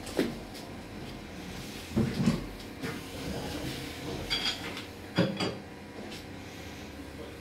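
Metal clanks and knocks from stainless steel oil press parts being handled: the end cap with the 12 mm nozzle being fitted on the stopped press head. There are a handful of separate knocks, the loudest about two seconds in and about five seconds in, some with a short metallic ring.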